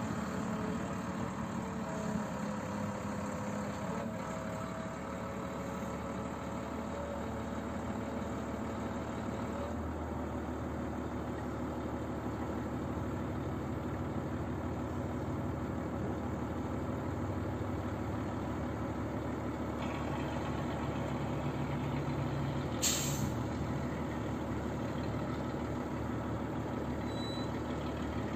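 Heavy diesel engine of a Volvo L180 wheel loader running steadily under load as it carries a bucket of stone. About three quarters of the way through comes a short, sharp hiss of released air, like an air brake.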